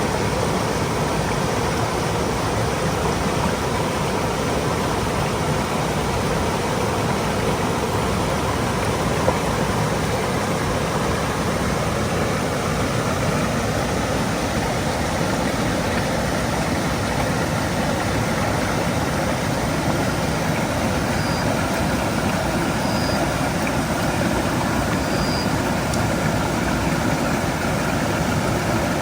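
Mountain stream flowing over rocks: a steady, even rush of water. Three faint, short, high chirps sound in the last third.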